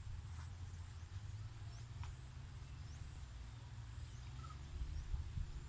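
Rural outdoor ambience of insects: a steady, very high-pitched drone with a second high chirp pulsing about one and a half times a second, over a low rumble.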